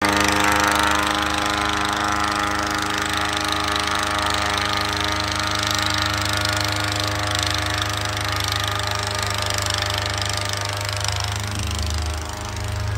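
Diesel engine of a Kubota compact track loader running steadily under load, with a constant hiss over it, as the loader pushes an airboat across snow.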